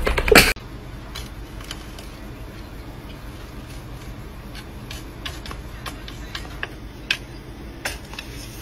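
A short loud burst cuts off sharply about half a second in. After it, a cat's paws press on a computer keyboard, giving scattered light clicks at an uneven pace.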